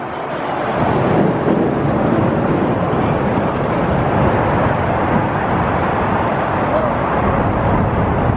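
Mercury outboard motor running in gear under load, its propeller churning the water as the boat tows on a rope to free a snagged magnet. A steady rush of engine and water noise that builds over the first second, then holds.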